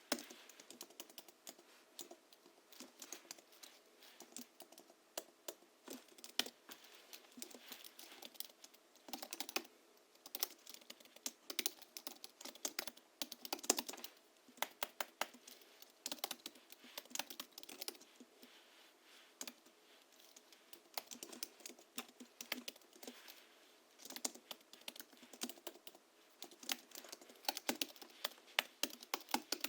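Hansung GHL-5X keyboard typed on in quick runs of keystrokes with short pauses between them; its springs are lubricated with Krytox 103 and 107, it has 50 g rubber domes and a sound-absorbing sponge against space-bar ringing, tuned for a thocky sound.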